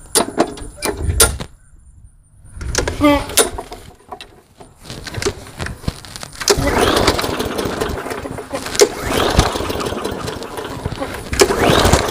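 Push lawn mower's small engine being cranked by several yanks of its recoil pull-starter cord. The spark plug is out and a compression gauge sits in the plug hole, so the engine turns over without firing; the pulls get harder and longer from about halfway in.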